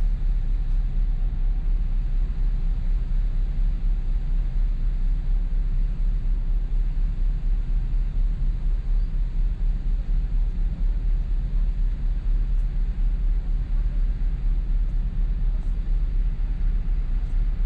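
Steady low rumble aboard the Shin Nihonkai Ferry car ferry Lavender as it leaves port, flickering slightly in level but never letting up.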